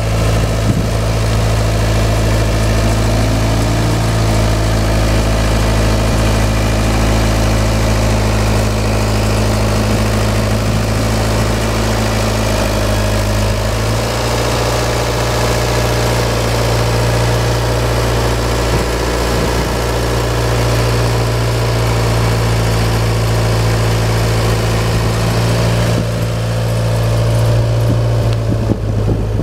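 Waldon Model 4500 articulating front loader's four-cylinder Perkins diesel engine running steadily as the loader drives about. The engine is a little louder near the end.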